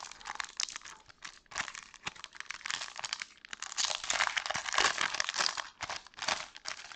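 Plastic foil wrapper of a Pokémon trading-card booster pack crinkled and torn open by hand: a dense, crackly rustling with a couple of brief pauses.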